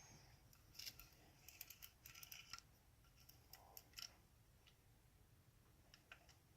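Faint metallic clicks and short scrapes from a tubular lock pick being worked in a picked ACE-type tubular lock, in a few small clusters.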